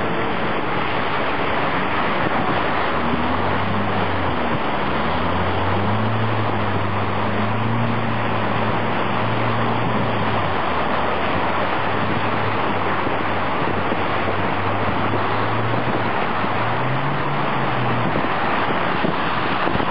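Car driving through deep floodwater: a steady rush of water thrown up from the wheels and along the side, with the engine's low note rising and falling underneath.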